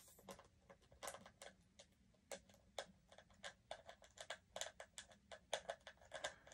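Faint, irregular clicking, several clicks a second, of a small screwdriver doing up the screw of a Furby toy's plastic battery cover.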